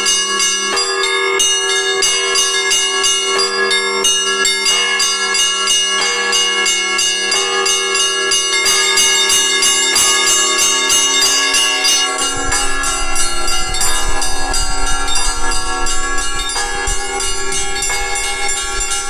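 Easter church bell peal: many bells struck in quick, continuous succession, bright small bells chiming rapidly over the held ring of larger ones. A low rumble comes in a little past halfway.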